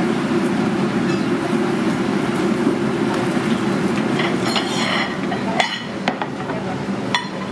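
Steady low rumble of a busy restaurant kitchen. In the second half, ceramic plates clink and clatter as they are handled, with a quick run of clinks and then two single knocks.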